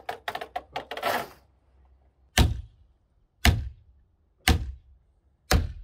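Four heavy hammer blows on a wooden log, about a second apart, each a sharp knock with a deep thud. They follow a quick run of clicks and rattles in the first second or so.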